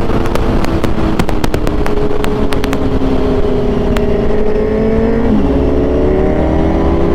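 Motorcycle engine running on the move over a steady low rumble. Its pitch sinks slowly, then climbs again near the end, and a run of sharp clicks comes in the first few seconds.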